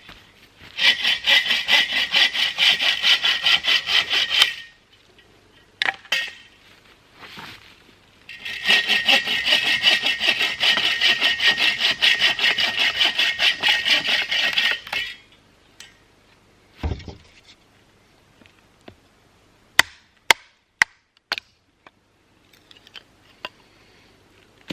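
Hand saw cutting through wood in two spells of quick, even back-and-forth strokes, the second one longer. These are followed by a dull thud and a few sharp clicks.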